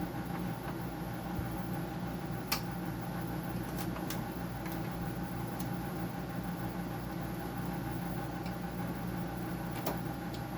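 A steady electric machine hum, with a few sharp clicks and taps from tools and parts being handled during removal of a dehumidifier's compressor, the loudest about two and a half seconds in.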